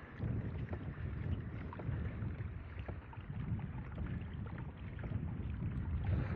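Water sloshing and trickling along the hull of a pedal-driven kayak under way, with a low wind rumble on the microphone and scattered small splashes.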